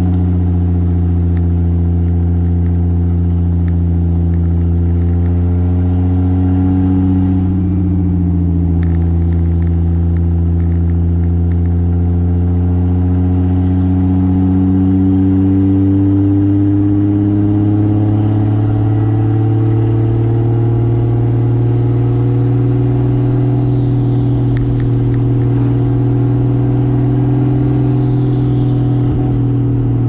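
Toyota Soarer's single-turbo 2JZ straight-six pulling along at steady revs while being driven. Its note dips briefly about a quarter of the way in, then climbs slowly over the following ten seconds and holds, with a few faint ticks over the top.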